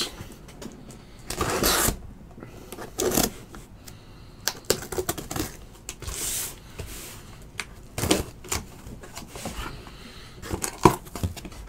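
Scattered clicks, taps and a few short rustles of objects being handled at a table, irregular with no steady rhythm.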